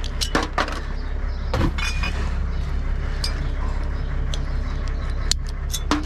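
Scattered clinks and knocks of glass bottles and other junk being handled and packed into a tote, over a steady low rumble.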